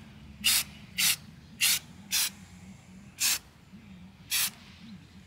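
Aerosol spray paint can hissing in six short bursts, unevenly spaced, as paint is dabbed through a stencil.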